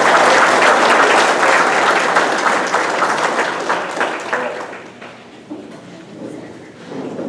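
Audience applauding, many hands clapping together, fading away after about four and a half seconds.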